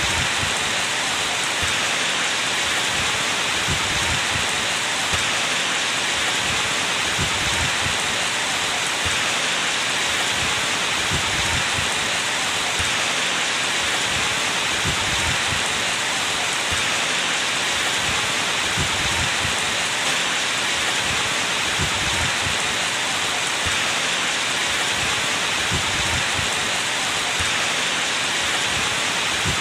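Steady heavy rain: a dense, even hiss of falling rain with soft irregular thuds of drops striking a surface.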